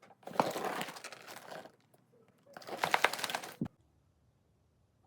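Two bursts of clicking and rustling, each a second or so long, from hard plastic being handled, then quiet.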